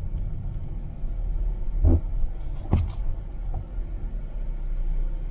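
Steady low road and engine rumble inside a moving Toyota's cabin, with two brief knocks about two and nearly three seconds in.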